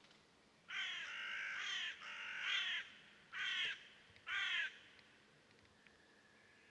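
Crow cawing: four harsh caws, the first two longer and the last two short, about a second apart.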